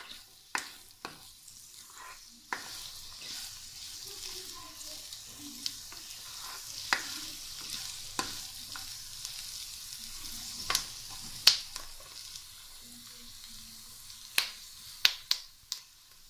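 Diced onion and green bell pepper sizzling in oil in a non-stick kadhai, lightly sautéed to soften them. A spatula stirs and scrapes them, giving irregular sharp taps against the pan.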